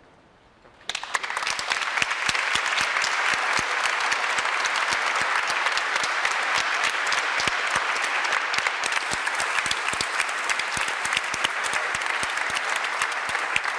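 A congregation clapping, a steady dense applause that starts about a second in.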